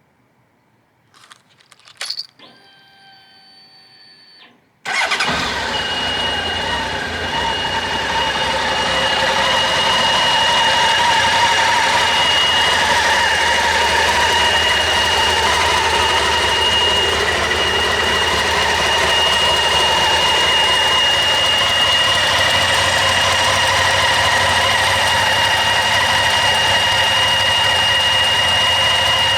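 A few clicks and a short steady tone, then about five seconds in the Honda CB1100SF X-Eleven's inline-four engine starts and settles into a steady idle. A thin high-pitched whine runs steadily over the engine, which fits the water-pump noise the owner is chasing.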